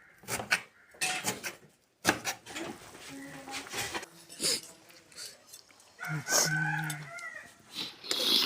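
A rooster crowing once, about six seconds in, among other short irregular sounds.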